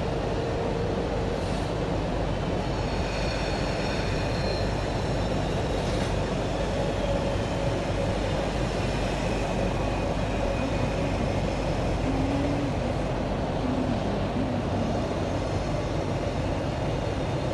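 Orange Line metro train heard from inside the carriage: a steady rumble with faint high whines that glide in pitch.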